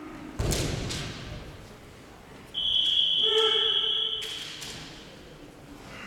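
A sharp thud echoing in a large hall about half a second in, then a steady high-pitched tone lasting about a second and a half, with a lower pitched sound joining it for part of that time.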